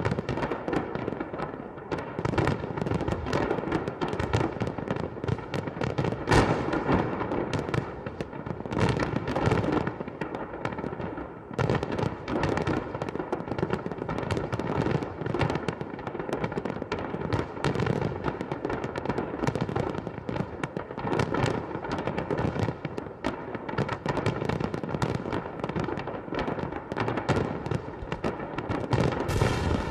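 Fireworks going off in a dense, continuous barrage of bangs and crackles, with a louder bang about six seconds in.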